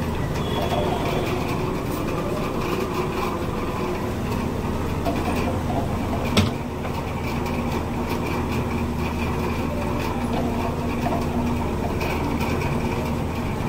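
A steady low mechanical hum and rumble, like a running engine or machine, with a single sharp knock about six seconds in.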